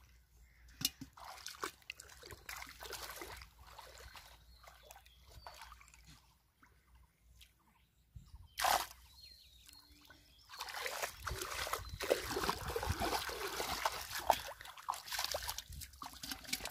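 Shallow muddy pond water sloshing and splashing as hands grope in it and bare feet wade through it. Small scattered splashes and drips at first, one sharp splash about halfway, then heavier continuous sloshing and splashing through the second half.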